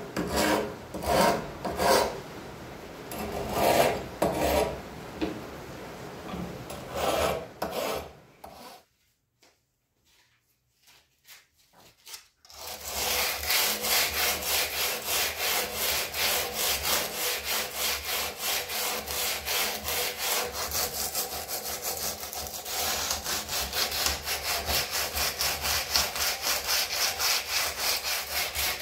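Rust being scoured by hand off the steel scabbard of a WW2 K98 bayonet. Uneven scraping strokes come first. After a few seconds of near silence, a fast, steady back-and-forth rubbing follows at about three strokes a second.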